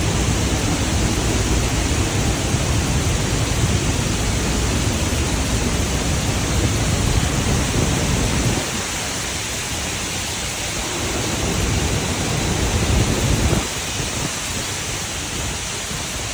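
Water released over a dam spillway crashing down as a waterfall: a loud, steady rush. A heavy low rumble of wind on the microphone sits under it, cutting out suddenly about nine seconds in, returning, and cutting out again near the end.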